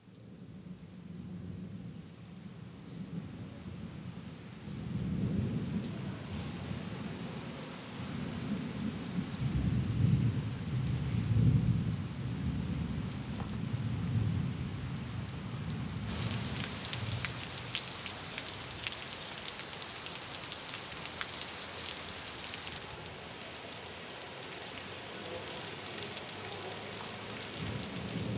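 Rain falling with rolling thunder. Low rumbles of thunder swell and fade through the first half. The rain grows suddenly louder about 16 seconds in and eases again some seven seconds later.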